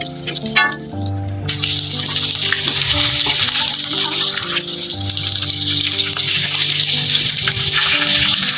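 Flour-coated chicken deep-frying in a wok of hot oil: a dense, steady sizzle that swells about a second and a half in, with background music underneath.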